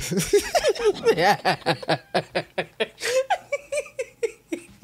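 A woman laughing hard in quick rhythmic bursts, about five a second, growing weaker near the end.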